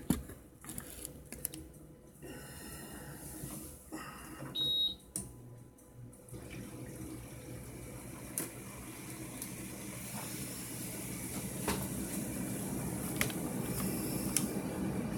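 Window air conditioner switched on: a short high beep from its control panel about five seconds in, then the unit starts up and runs with a steady hum and rush of air that grows a little louder toward the end.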